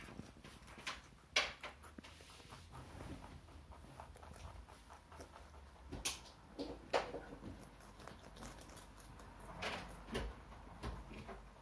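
Pet rabbits chewing cabbage leaves: irregular small crunches with a few louder rustles of leaves being pulled and shifted.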